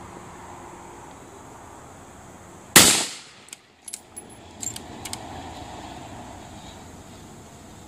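A single rifle shot from a scoped Savage Model 12 bolt-action in .223 firing a handloaded 68-grain match bullet, a sharp crack that dies away over about half a second. A few short, sharp clicks follow over the next two seconds or so.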